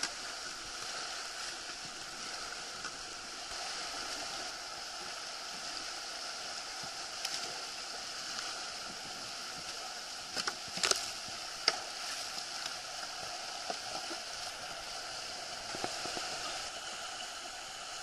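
Whitewater rushing steadily as kayaks surf in a river wave. A few sharp knocks come about ten to twelve seconds in.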